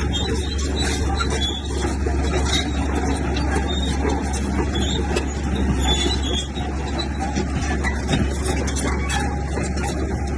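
Komatsu bulldozer's diesel engine running steadily, with a constant low drone.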